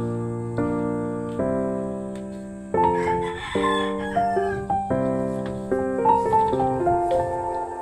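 Background music: soft piano or electric keyboard chords, changing about every second with short melodic notes on top.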